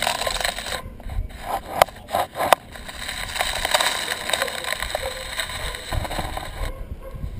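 Rattling, scraping noise of something rolling over a rough, stony dirt street, with two sharp knocks about two and two and a half seconds in.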